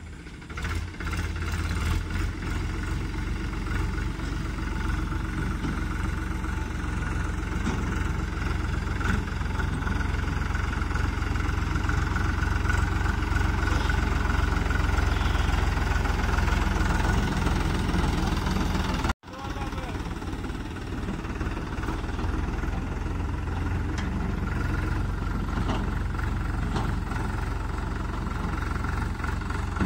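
Powertrac Euro tractor's diesel engine running steadily as it pulls a trolley, cutting off for a moment about 19 seconds in.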